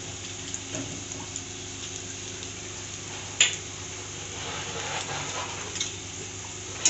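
Ginger, green chilli and whole spices sizzling in mustard oil in a steel kadhai, a steady faint frying sound, with one sharp click about halfway through and another at the end.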